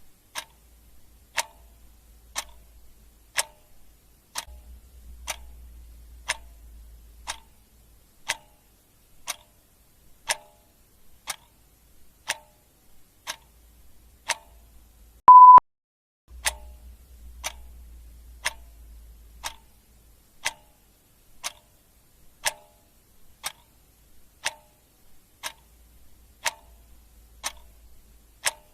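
Clock ticking steadily, about one tick a second in a tick-tock rhythm. About halfway through, a single short, loud beep sounds.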